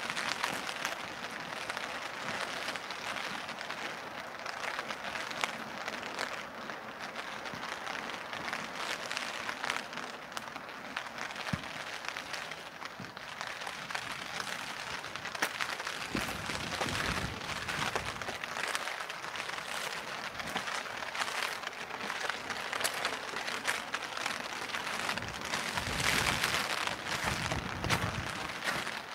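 Steady rain: a dense patter of many fine drop hits. A low rumble swells up about halfway through and again, louder, near the end.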